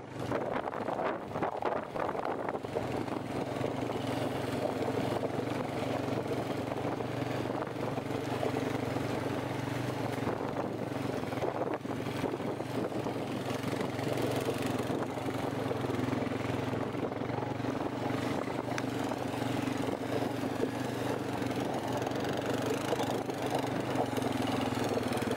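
Quad (ATV) engine running steadily while riding. The engine note settles to a constant pitch about two seconds in.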